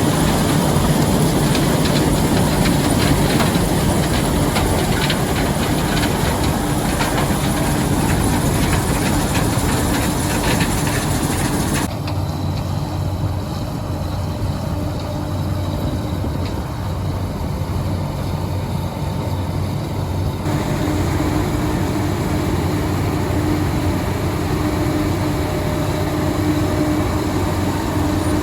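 Heavy farm machinery running steadily under load during corn harvest, a continuous engine drone with mechanical rattle. The sound changes abruptly twice, about 12 and 20 seconds in, losing and then regaining its higher clatter.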